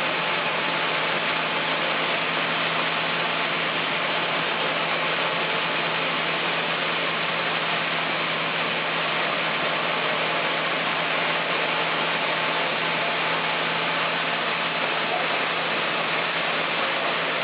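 Sawmill machinery running steadily: an even rushing noise over a constant low hum, with no distinct cuts or impacts.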